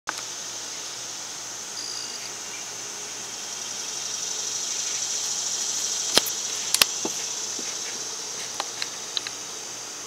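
Steady high-pitched chorus of late-summer insects, swelling a little toward the middle. Two sharp clicks about six and seven seconds in, and a few fainter ticks near the end.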